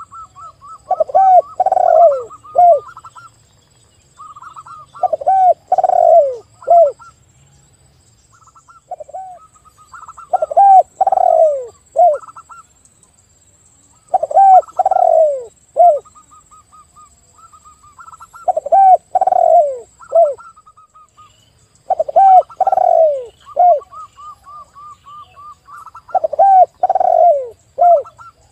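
A spotted dove and a zebra dove calling together. The spotted dove gives loud, low, descending coos in phrases of three or four notes, repeated about every four seconds. The zebra dove's quicker, higher staccato cooing runs between and over them.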